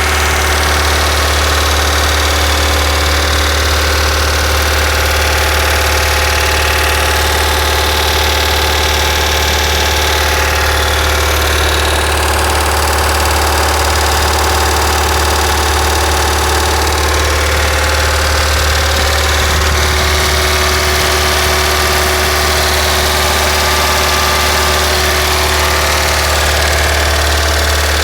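Opel Astra H engine running steadily at about 1500 rpm with the car stationary, with a rattling from the rear of the engine bay whose cause the owner is trying to find.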